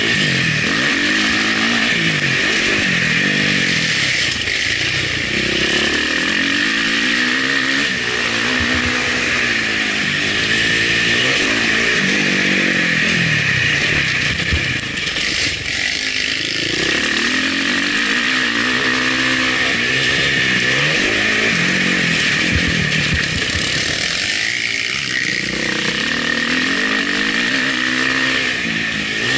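Motocross bike engine heard from an onboard camera, revving up and dropping back again and again as the rider works the throttle and gears along the track.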